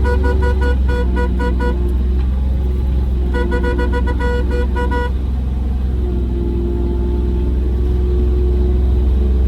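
Kubota RTV 1100 utility vehicle's three-cylinder diesel engine running steadily, with two runs of rapid, even beeping, about four or five beeps a second: the first stops about two seconds in, the second runs from about three to five seconds in.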